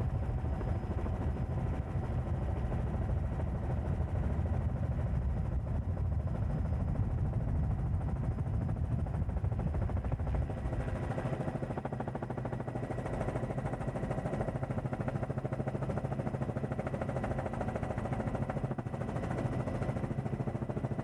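Helicopter engine and rotor noise, running steadily. Its tone changes about halfway through, with less deep rumble and more mid-range hiss.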